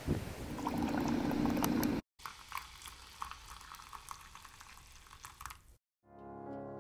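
Food cooking, bubbling and crackling in a pot or pan. It comes in two edited cuts with a short silent gap between them, and the second cut is quieter and thinner. Near the end a low, pitched sound swells in.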